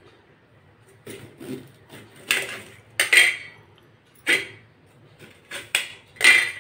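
A serrated kitchen knife cutting a lemon on a stainless steel plate, the blade repeatedly clinking and scraping against the steel. There are about eight sharp clinks, the loudest near the end.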